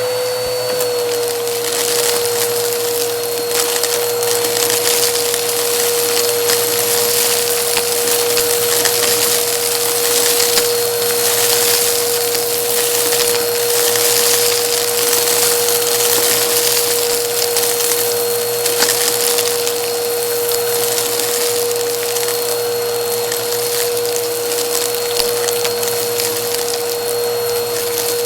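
Vacuum cleaner running steadily with a high motor whine that dips slightly in pitch about a second in, while crunchy debris crackles and rattles as it is sucked up off a rug.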